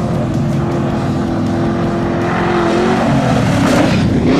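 Off-road race vehicle engine running at steady high revs, its pitch dipping and then climbing again near the end, as on a lift of the throttle or a gear change.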